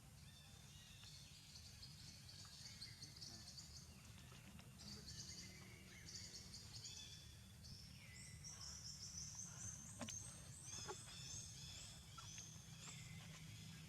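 Faint outdoor ambience: quick, high chirping calls repeating in dense runs, busiest in the second half, over a steady low rumble, with a couple of light clicks about ten seconds in.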